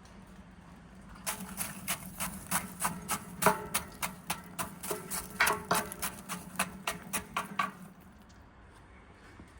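A quick run of sharp knocks or taps, about three a second, starting about a second in and stopping after some six seconds, with a slight ringing after some strokes; a low steady hum underneath.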